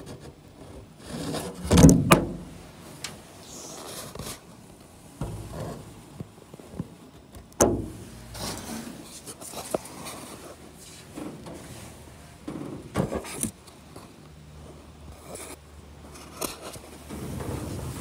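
Handling noise: irregular knocks and scraping as a small camera is pushed and bumped around inside a Cessna's aluminium wing. The loudest knock comes about two seconds in, with sharper ones near the middle and again a little past thirteen seconds.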